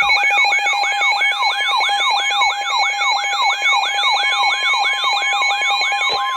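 Electronic siren-style alert alarm yelping in quick falling sweeps, about four a second, over a steady tone, as it signals an incoming severe weather warning. A second steady alert tone joins right at the end.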